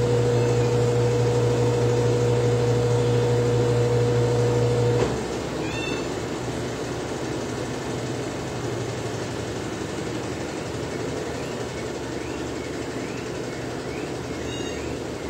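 A cat meowing twice, short and high-pitched, about six seconds in and again near the end. Before the first meow a steady low hum cuts off suddenly about five seconds in, and faint short rising chirps repeat in the later part.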